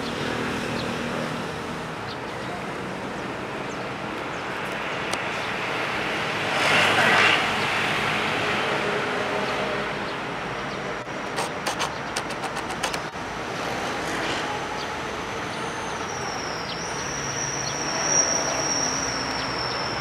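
Steady road traffic noise, with a vehicle passing close and swelling louder about seven seconds in. A quick run of clicks comes around eleven to thirteen seconds in, and a steady high-pitched tone sounds from about fourteen seconds on.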